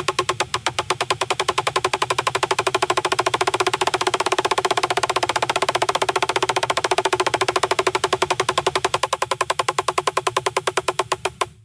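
Electric motor of an operating table lowering the table: a steady, rapid pulsing drone at about ten pulses a second that cuts off abruptly near the end.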